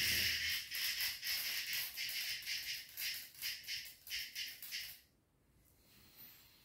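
A trapped insect buzzing loudly and harshly while the cat paws at it. One continuous buzz breaks into rapid pulses of about four a second, then it stops abruptly about five seconds in.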